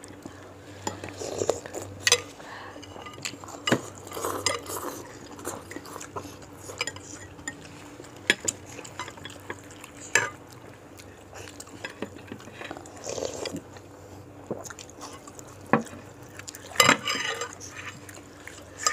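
Metal spoon and fork clinking and scraping against a soup bowl while cutting into a giant meatball in broth, in irregular sharp clinks a second or more apart.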